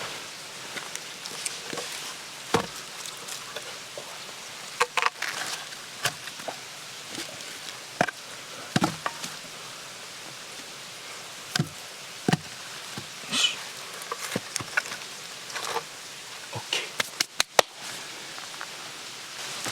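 Wood being chopped or split by hand: about a dozen sharp knocks and cracks at irregular intervals, with a quick cluster near the end.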